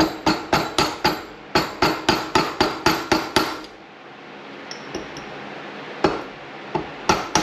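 Hammer tapping on a 13mm socket to drive a rotary lip seal into an RB26 individual throttle body: a quick series of sharp metallic taps, about four a second, then a pause and a few more taps near the end as the seal seats.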